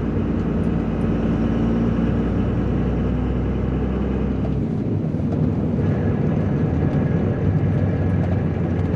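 Cummins diesel engine running as the pickup drives slowly. About halfway through, the deep low rumble drops away, and soon after a faint steady high whine comes in.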